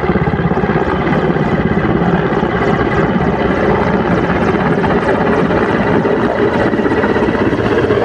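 Mi-17 transport helicopter coming in low to land, its main rotor giving a steady rapid chop over the whine of its turboshaft engines.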